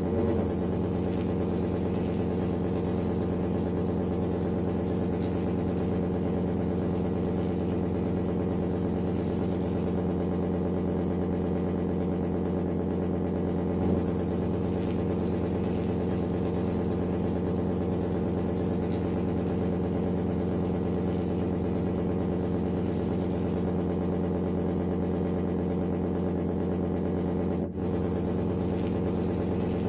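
Engine idling steadily at one unchanging pitch, with a brief dropout near the end.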